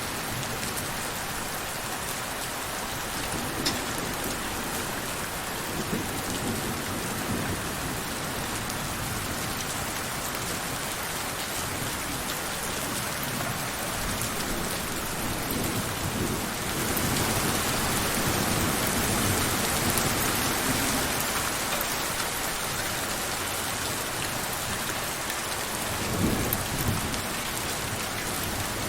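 Steady rain falling, growing heavier for several seconds a little past halfway. Low rumbles come in now and then, the strongest near the end.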